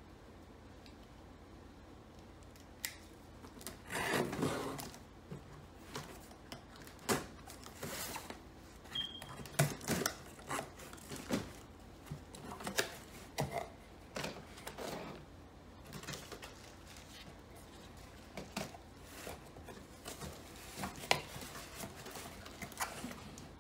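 A cardboard shipping case is cut and torn open by hand, with cardboard scraping and rustling and scattered knocks and clicks; one longer rustle about four seconds in.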